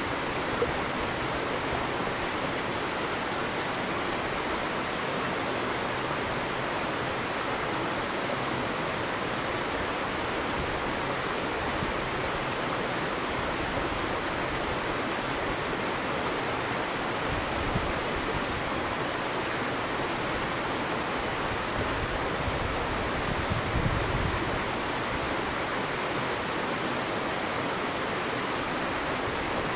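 Steady rushing of flowing water, like a stream or small waterfall running close by, with a few faint knocks.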